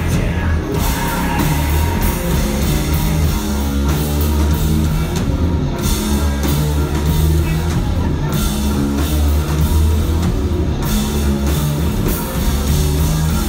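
Live rock band playing loudly: electric guitar, bass guitar and drum kit, with held bass notes that change every second or so.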